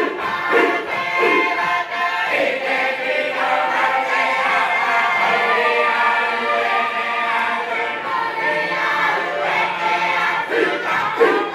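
A large mixed group of men and women singing together in harmony, with long held chords and no instruments heard.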